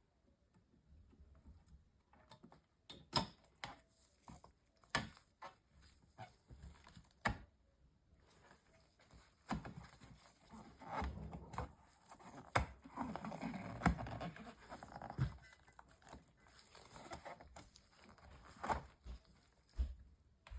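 Hands handling a laptop and its parts: scattered sharp clicks and taps. Near the middle there is a stretch of rustling and crinkling, like plastic or adhesive being handled.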